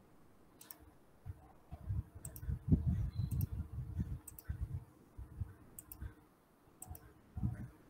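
Scattered computer mouse clicks with irregular soft low knocks of desk handling, heard over a video-call microphone. The knocks are loudest in a busy stretch a couple of seconds in.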